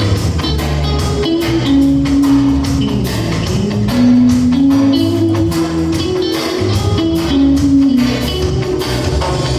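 A band playing an instrumental passage with no singing: a guitar melody over bass notes and a steady drum beat.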